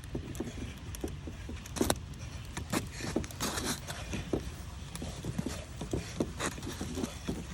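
Broken PVC pipe stub being twisted and worked loose from a threaded PVC T fitting: irregular plastic clicks, knocks and scrapes, one sharper knock about two seconds in, over a steady low rumble.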